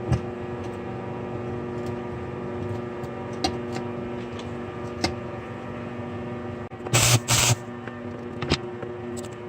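Steady electrical hum from a welder and the shop, with faint clicks. About seven seconds in come two short, loud, crackling bursts of welding, a pair of quick tack welds on the steel chain.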